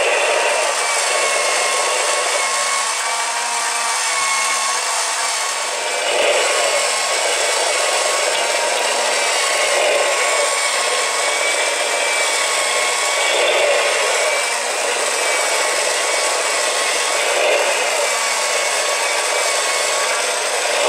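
Motorized 1:4 scale plastic Haynes flat-six boxer engine model running: its small electric motor drives the plastic pistons, valves and distributor with a steady whirring whine that wavers slightly in pitch and swells every few seconds.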